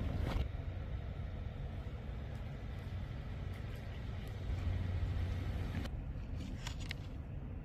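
A low, steady rumble, with a few short crunching clicks from an orange tabby cat chewing dry kibble, mostly about six to seven seconds in.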